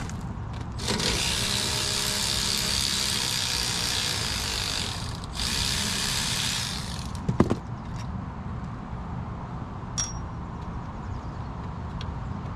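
A cordless power tool runs in two spells, about four seconds and then about a second and a half, as bolts are worked at a truck's front brake caliper. A single sharp knock follows, then a small click.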